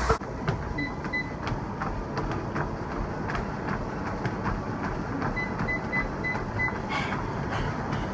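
Two treadmills running with regular footfalls thudding on the belts. Short high console beeps come twice about a second in and then about six in quick succession around the middle, as the speed buttons are pressed.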